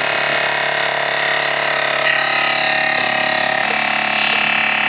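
BikeMaster 12-volt portable air compressor running steadily as it pumps up a motorcycle's rear tyre, a loud, even buzzing drone whose tone changes slightly a little past halfway.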